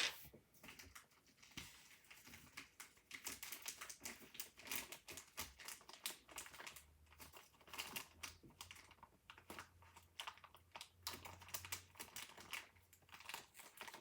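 Faint, irregular light plastic clicks and taps of keycaps being handled and fitted on a mechanical keyboard, with a little crinkling.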